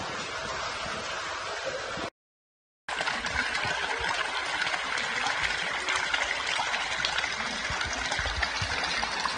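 Sulfur hot-spring water pouring from a pipe spout into a bath, a steady splashing. The sound cuts out for just under a second about two seconds in.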